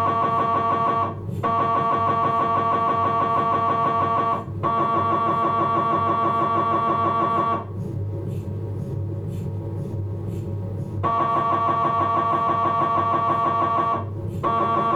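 Philips 1.5 tesla MRI scanner running a T1-weighted axial fat-suppressed sequence: its gradient coils make a loud, pitched, rapidly pulsing buzz. The buzz breaks off briefly about a second in and again at about four and a half seconds. It gives way to a quieter low rumble from about eight to eleven seconds, then resumes.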